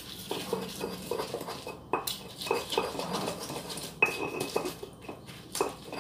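Stone pestle crushing and grinding shallots, garlic, chillies and ginger in a stone mortar (cobek and ulekan) to make spice paste: irregular knocks and scrapes of stone on stone, a couple each second, with sharper knocks about two and four seconds in.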